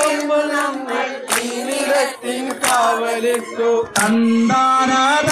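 A crowd of women singing a Malayalam protest song in chorus, led into a microphone, with hands clapping in time.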